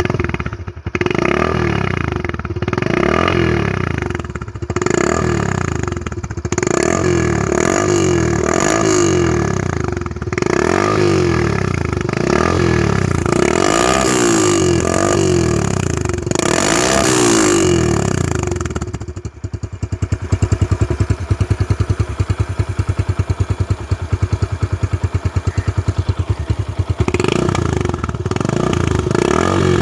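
Motorcycle engine exhausting through a stock silencer that has been cut open to make it louder, revved in a string of short blips, then left at a steady, evenly pulsing idle for several seconds, then revved again near the end.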